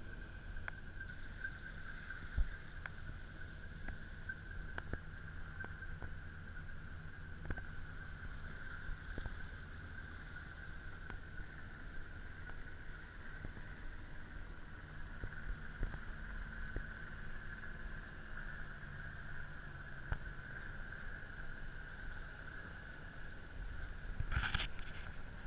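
A steady engine drone from a tugboat towing a barge across the harbour, a low rumble under a constant higher hum, with scattered small clicks. A short louder rush of noise comes near the end.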